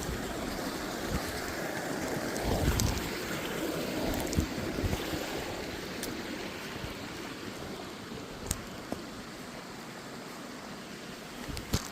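Steady rushing noise of flowing water, with wind buffeting the microphone about two and a half seconds in and a few faint clicks.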